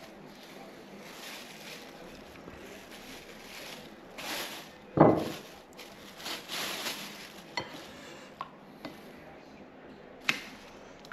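Fish being handled and tossed in breadcrumbs in a plastic freezer bag: bursts of bag rustling, one loud thump about five seconds in, and a few light clicks and taps near the end.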